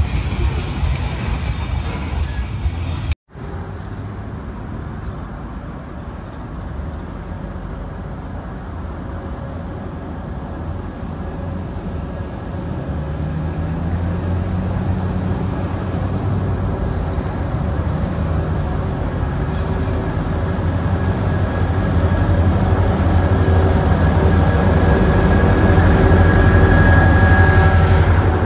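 Freight cars rolling past on the rails, cut off abruptly about three seconds in. Then an approaching diesel freight locomotive, its engine rumble growing steadily louder as it nears, with a thin high-pitched squeal near the end.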